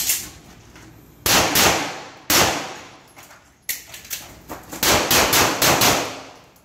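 Handgun shots in a practical-shooting course of fire: one at the start, a pair about a second in, another a second later, then a quick string of about eight shots from about four seconds on.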